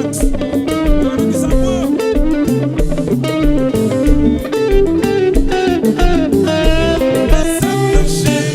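Konpa band playing an instrumental passage: a lead electric guitar picks quick runs of notes over a steady bass line and a regular drum beat.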